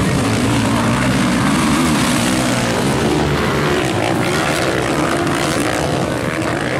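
Several motocross bikes racing together, their engines revving up and down as the riders go through the turns and jumps, a loud continuous mixed engine drone.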